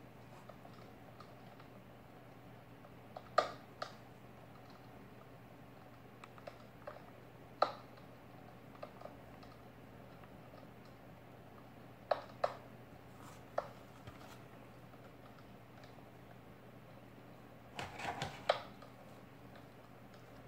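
Clear plastic blister pack and card of a diecast toy car handled with gloved fingers: scattered sharp clicks and crackles of the plastic a few seconds apart, with a quick cluster of them near the end, over a faint steady hum.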